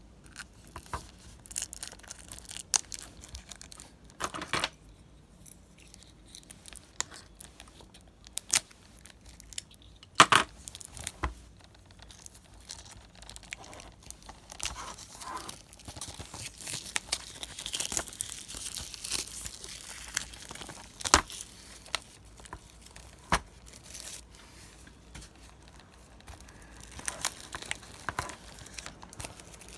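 Plastic shrink-wrap being torn and crinkled off a Blu-ray box set, with scattered clicks and knocks from the plastic case being handled; the tearing and crinkling is most sustained in the middle of the stretch.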